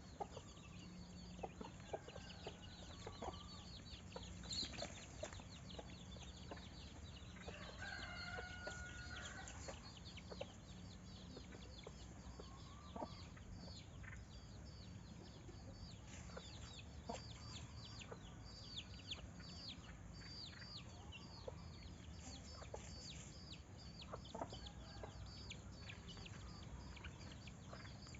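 Chickens clucking, with a longer held call about eight seconds in, over a steady run of rapid high-pitched chirping.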